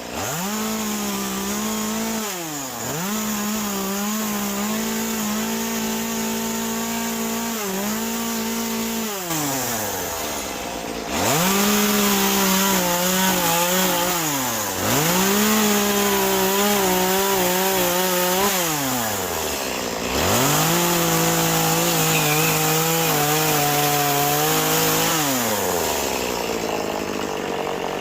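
An Echo CS-2511 top-handle two-stroke carving chainsaw cutting into a Western Red Cedar stump in about six bursts. Each time it revs up, holds a steady pitch while the bar is in the wood for a few seconds, then falls back toward idle. The cuts are louder from about a third of the way in, and the saw drops out near the end.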